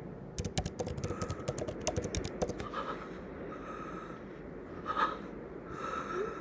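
Typing on a computer keyboard: a quick run of keystroke clicks for the first couple of seconds, then a few faint, brief tones in the second half.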